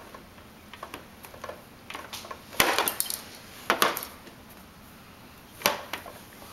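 Plastic toys on an Evenflo ExerSaucer activity saucer clicking and knocking as a baby grabs and handles them: a scatter of sharp knocks, the loudest about two and a half, three and three-quarters and five and a half seconds in.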